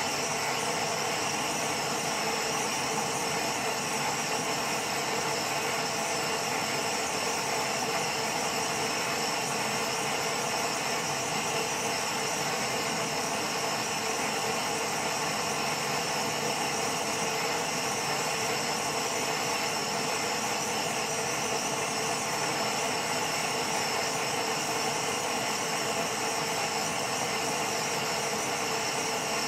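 Heat-treating furnace running: a steady, unchanging mechanical hum and hiss carrying several faint constant tones.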